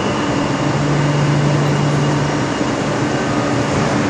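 Steady hum of a Madrid Metro train standing at the platform, with a low droning tone that weakens about two and a half seconds in and returns near the end, over the noise of the station.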